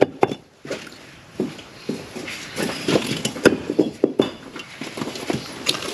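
Loose old bricks knocking and clattering against each other as a garden brick wall is pulled down and people step over the rubble heap: a scatter of separate sharp knocks and clinks, the loudest about three and a half seconds in.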